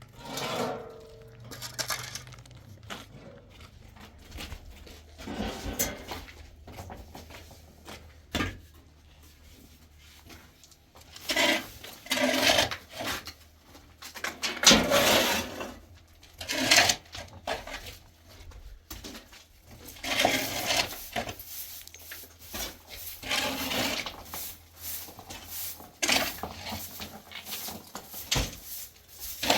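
Intermittent clatter, knocks and scraping of objects being handled, in irregular bursts of a second or two with quieter gaps between.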